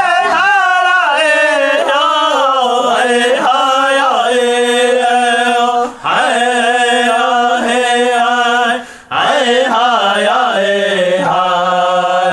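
A voice chanting a Lakota/Dakota prayer song unaccompanied, in long held notes that slide between pitches, with short pauses for breath about six and nine seconds in.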